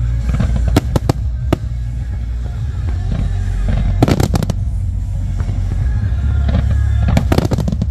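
Aerial fireworks bursting in a display: sharp cracks come in groups, a few about a second in, a loud rapid cluster at about four seconds and another near the end, over a steady low boom, with music playing.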